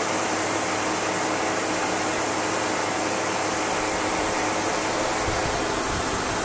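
Sebo Automatic X1 upright vacuum cleaner running steadily on a rug, a constant whirring hiss. A low rumble joins about five seconds in as the head is worked over the carpet.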